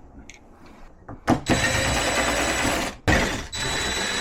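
A sharp knock about a second in, then a steady mechanical running noise with a faint high whine, briefly cut about three seconds in.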